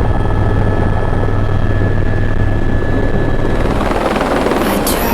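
Helicopter in flight, heard from inside the cabin: a loud, steady low rotor and engine drone.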